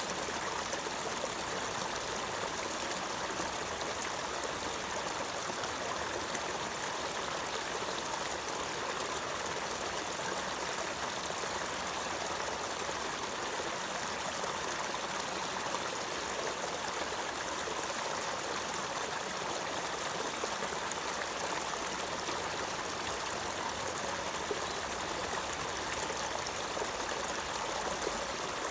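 Water running steadily, a continuous even rush with no breaks or changes.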